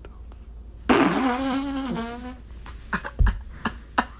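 A man laughing: one drawn-out, wheezy laugh about a second in, then a run of short, breathy chuckles.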